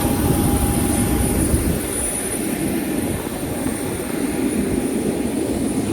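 Steady rushing noise of a moving vehicle, with a faint high steady tone over it.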